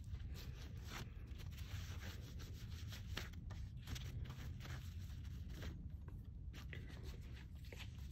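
Faint, irregular rubbing and scraping of parts and tools being handled during a strut rebuild, over a low steady hum.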